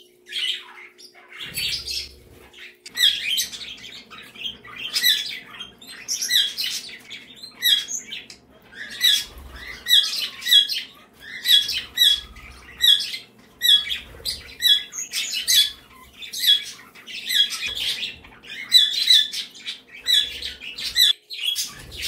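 Pet budgerigars calling in sharp, repeated chirps and squawks, about one or two a second, loud and close.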